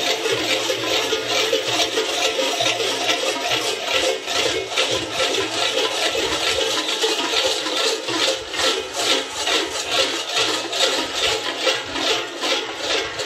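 Many large bells worn by a Krampus group in fur costumes, clanging together in a steady rhythm with the walkers' steps.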